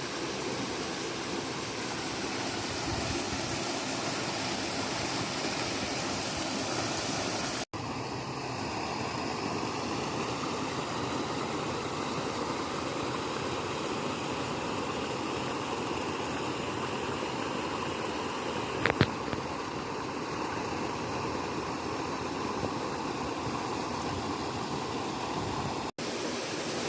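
Steady rush of flowing river water, cutting out for an instant twice, with one short knock about two-thirds of the way through.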